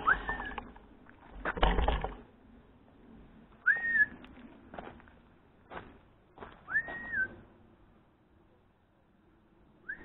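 A person whistling a repeated call: four short whistles a few seconds apart, each sliding up quickly to a high held note and dipping at the end. A loud burst of low noise comes about one and a half seconds in, with a few scattered knocks.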